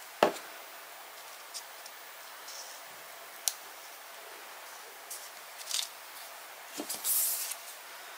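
Hand handling sounds of paper crafting at a work table: a sharp knock about a quarter second in, a few light clicks, and brief rustles of cardstock, the longest near the end.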